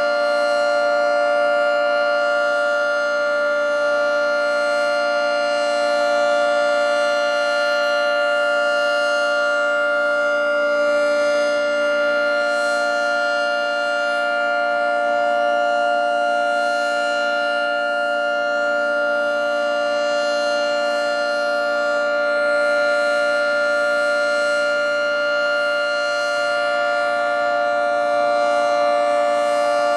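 Federal 3T22 rotating three-tone outdoor warning siren sounding a steady alert chord at an unchanging pitch, its loudness swelling and easing gently.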